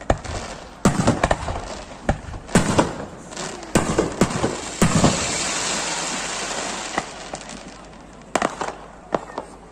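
Fireworks display: a rapid series of sharp bangs from bursting aerial shells, with a dense crackle that swells about five seconds in and dies away, then a few more scattered bangs near the end.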